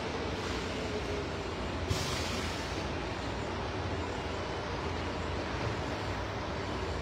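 Steady low rumble and hiss of background noise, with a brief sharper hiss about two seconds in.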